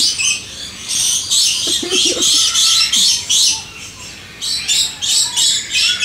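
A flock of parrots screeching: harsh, loud calls one after another, with a brief lull about four seconds in.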